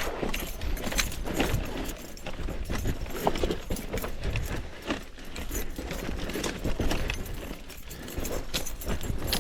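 Mountain bike rattling over rough ground on a descent: a constant, irregular clatter of knocks from the bike, over a steady low rumble.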